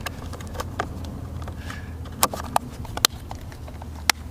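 Scattered sharp clicks and knocks, about seven in all, from tools and parts being handled on a fibreglass boat deck, over a steady low hum. No drill is heard running.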